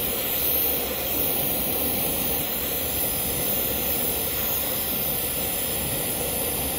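Oxy-fuel brazing torch with a rosebud tip burning with a steady hiss, heating a copper refrigerant line joint for brazing.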